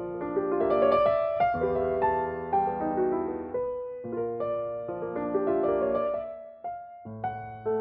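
1966 Mason & Hamlin Model A grand piano played solo: a slow, lyrical passage of sustained melody notes over chords, with a brief pause near the end before fuller chords come in.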